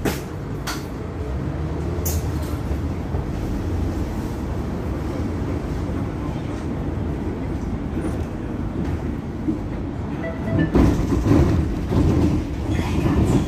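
Interior noise of a city bus on the move: a steady low rumble of engine and road through the cabin, with a few sharp clicks in the first two seconds, growing louder about eleven seconds in.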